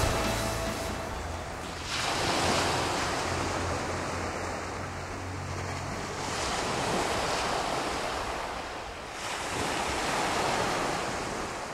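Sea waves washing onto a shore, the rush swelling three times, about two, six and a half and nine seconds in. Music fades out in the first second.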